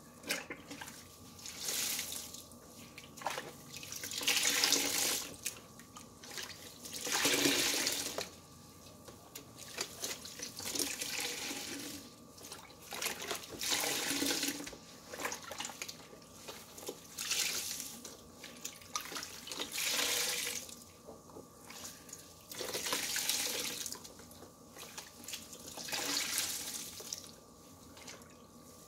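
Large wet sponges being squeezed and dunked in a plastic tub of soapy water: water gushes out of them and splashes back into the tub in repeated swells every two to three seconds.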